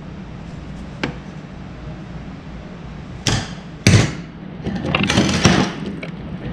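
Pliers put down on a cluttered workbench: two sharp knocks about three and four seconds in, the second the loudest, after a faint click about a second in. A short stretch of clatter and rustling follows as multimeter test leads are picked up.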